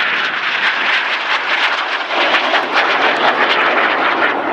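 Jet engine noise from an Aermacchi MB-339 display jet flying past overhead: a loud, steady rushing sound that grows fuller about two seconds in.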